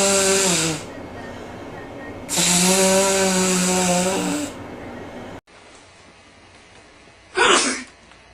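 A person blowing their nose hard with a loud, honking tone: one blow trails off in the first second, then a second long blow of about two seconds follows. Near the end comes one short, sharp burst with a falling pitch.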